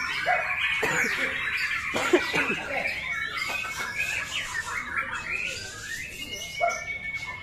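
White-rumped shama (murai batu) in full song: a dense, rapid run of varied chirps and whistles sliding up and down in pitch, ending in a long held whistle.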